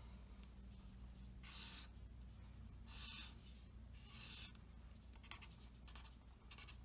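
Faint pen strokes on paper on a clipboard as number lines are drawn: three longer strokes about 1.5, 3 and 4 seconds in, then a few shorter ones.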